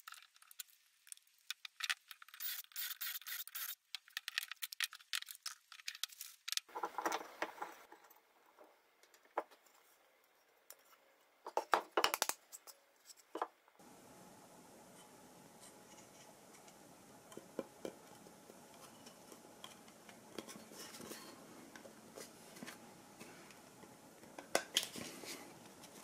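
Workshop handling noise: a metal dowelling jig and quick clamps clicking and rattling as they are fitted onto a pine board, with a few louder knocks. Later, light rubbing and knocks as doweled pine boards are handled and pushed together into a mitre joint.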